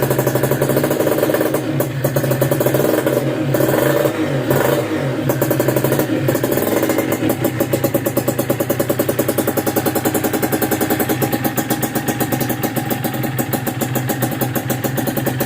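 Kawasaki Ninja 150 SS single-cylinder two-stroke engine running, with the revs rising and falling a few times about two to five seconds in, then settling into a steady idle. The engine runs super smooth.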